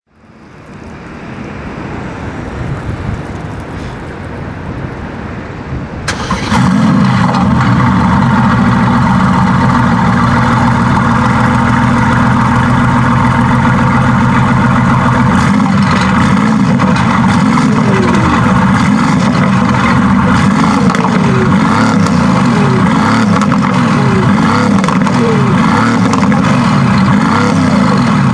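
Mercedes-AMG GT S twin-turbo V8, tuned with aftermarket downpipes and turbos, idling steadily and loudly. For the first six seconds a quieter, muffled version of the sound grows louder, then it turns suddenly loud and full.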